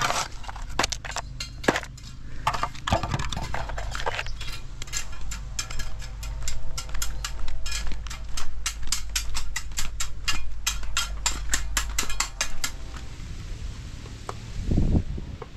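A steel shovel scraping and striking stones in wet, rocky soil, then a long run of quick, even metallic clinks, about four a second, with a faint ringing under them. A dull thud near the end.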